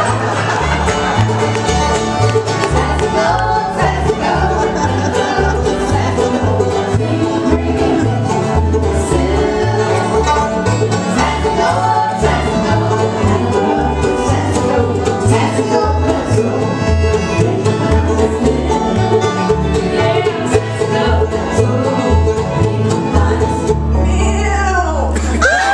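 Live bluegrass band playing, with fiddle, acoustic guitar and electric bass guitar.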